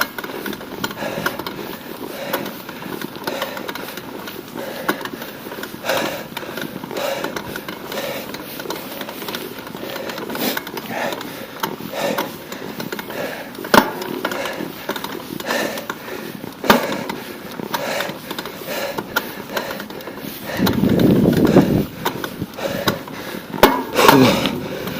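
Riding a bicycle: a steady rush of wind and road noise on the camera microphone, with frequent sharp clicks and rattles from the bike, and a louder surge of low rushing noise about 21 seconds in.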